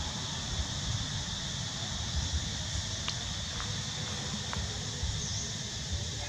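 Outdoor forest ambience: a steady, high insect chorus over a gusty low rumble of wind on the microphone, with a few faint clicks in the middle.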